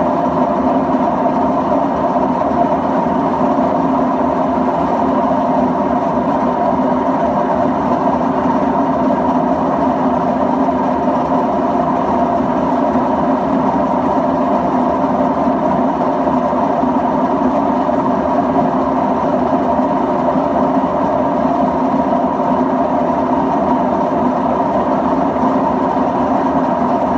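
LG WD-1403TDS6 direct-drive front-loading washing machine running, making a loud, steady mechanical noise from its drum. This is the abnormal noise the owner reports as a problem with the direct-drive drum.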